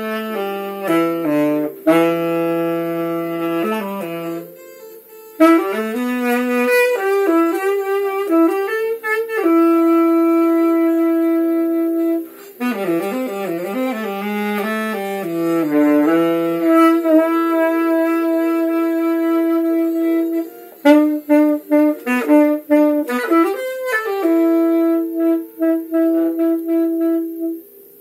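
A saxophone played solo: a melody of long held notes and quicker runs, with short pauses between phrases.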